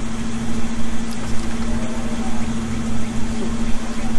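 A motor running steadily nearby, a constant even hum with a low rumble underneath.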